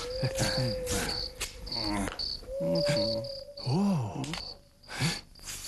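Crickets chirping in short, regular pulses as a night-time sound effect, with a few sliding tones, low hums and scattered clicks laid over them.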